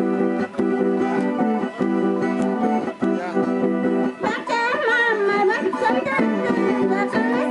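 Two charangos strummed together in a steady rhythmic Andean dance tune. About halfway in, a high woman's voice joins, singing with a wavering vibrato over the strumming.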